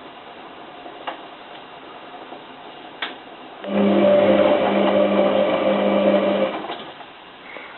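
Hotpoint 9534A washing machine's drum motor starts about halfway through, turns the drum with a steady hum for about three seconds, then stops: a tumble during the heating stage of a 95 °C boil wash. A light click comes shortly before the motor starts.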